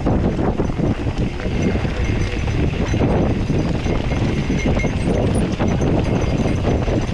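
Mountain bike rolling down rocky dirt singletrack: tyres running over loose stones and the bike clattering with many small, irregular knocks, heavy rough rumble underneath.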